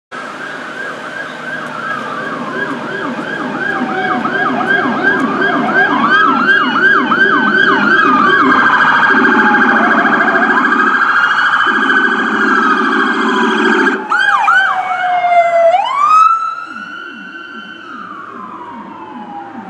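Police car electronic sirens sounding as the cars pass, overlapping in fast yelps and slower rising and falling wails, with a lower-pitched pulsing siren beneath. A deep steady horn-like tone sounds twice near the middle, and the last wail fades away toward the end.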